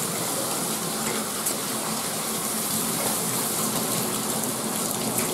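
Handheld shower sprayer spraying water steadily onto a Newfoundland dog's thick coat, the water splashing and running off into a stainless-steel grooming tub.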